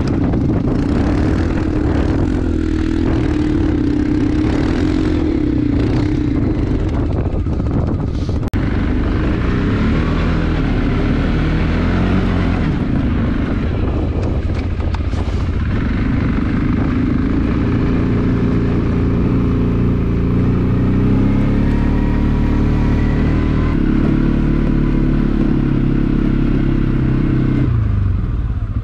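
CFMOTO CForce ATV engine running under load through deep snow, its pitch rising and falling as the throttle changes. The engine note falls away sharply near the end.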